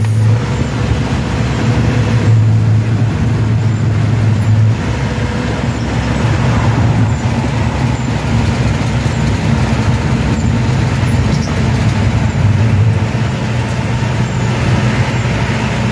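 Owner-type jeep cruising at highway speed, heard from inside the cabin: a steady low engine drone that swells and eases, under loud road noise.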